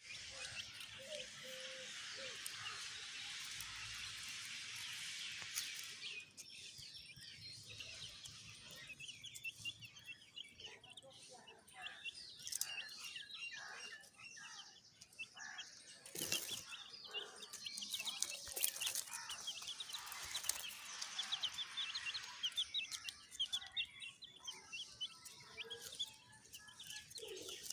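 A group of young chicks peeping continuously, many high chirps overlapping, with a couple of sharp knocks around the middle.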